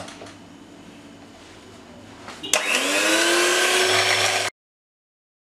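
Fagor electric hand mixer switched on about halfway in, its motor whine rising as it spins up, then running steadily as the beaters whisk eggs and sugar in a glass bowl. The sound cuts off abruptly about a second before the end.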